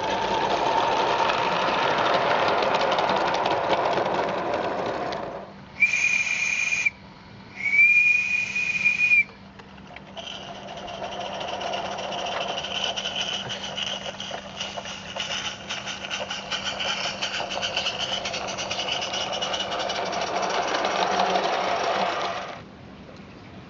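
Live-steam 0-6-0 Merlin Major garden-railway locomotive running with a rapid, even clatter. About six and eight seconds in it gives two blasts on its steam whistle, the second a little longer, then runs on until the sound cuts off near the end.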